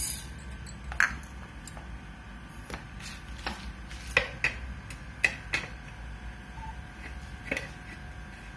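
Scattered light clicks and taps, about eight in all and irregularly spaced, from things being handled on a kitchen counter, over a faint steady hum. No mixer grinder is running.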